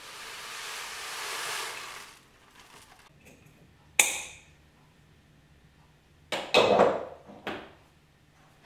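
Granola poured from a paper bag into a glass jar, a dry rustling pour lasting about two seconds. About four seconds in comes one sharp glass clink, and near the end a short clatter of glass jars being set down on the counter.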